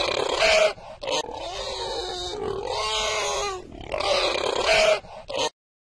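Domestic pig grunting in two similar bouts, each a drawn-out grunt followed by a few short sharp calls; it cuts off abruptly near the end.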